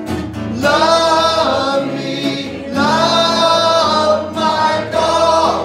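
Live song with strummed acoustic guitar: sung voices hold three long notes with vibrato, the voices waver in pitch over the guitar.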